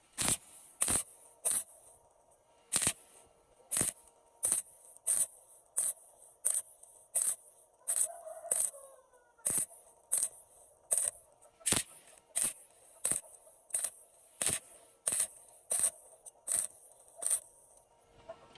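Stick-welding arc on thin galvanized steel struck in short, rapid stitches: about two dozen brief hissing crackles, roughly one every 0.7 seconds, each cut off quickly so the thin metal does not burn through.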